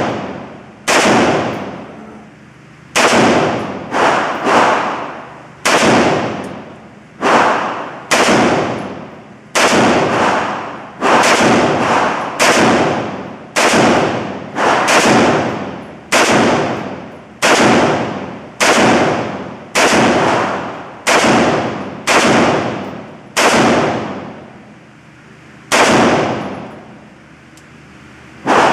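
A long string of gunshots, about thirty, fired one at a time at a steady pace of roughly one a second, each shot followed by a decaying echo. The pace slows near the end with two longer pauses.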